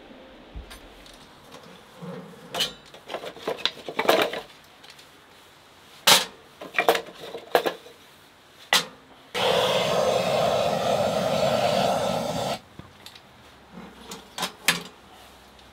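Wood stove being loaded and lit: sharp clinks and knocks of wood and metal, then a steady hiss for about three seconds as the fire is lit, followed by a few more clinks at the firebox door.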